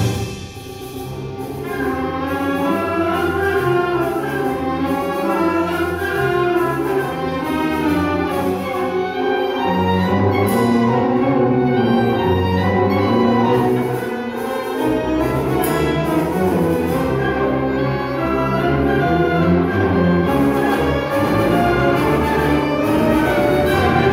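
High school concert band playing a wind-band piece. A sudden drop in volume just after a loud climax, then the band swells back over a couple of seconds into sustained full-band chords and moving melody lines.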